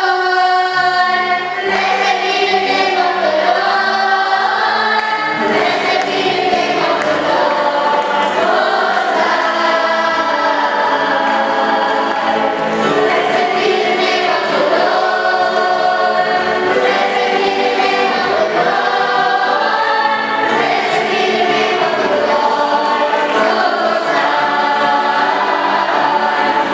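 Church choir singing a gospel song, with sustained notes.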